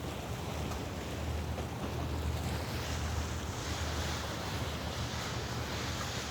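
Sea waves washing in, with a hiss that swells about halfway through, under wind buffeting the microphone with a steady low rumble.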